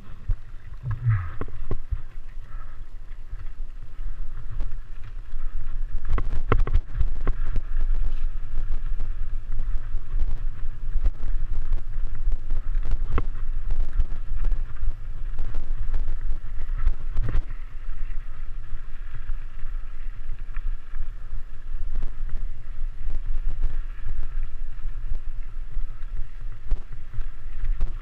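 Mountain bike being ridden on a dirt single-track trail, heard from a camera on the bike or rider. A steady low rumble of wind and ride noise is broken by scattered knocks and rattles from the bike.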